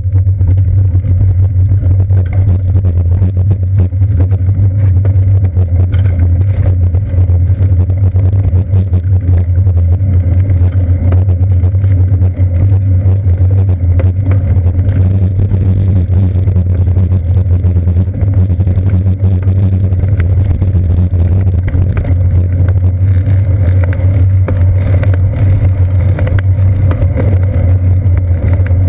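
Loud, steady low rumble of wind buffeting and road vibration picked up by a seat-post-mounted GoPro Hero 2 on a moving bicycle, with cars passing close by.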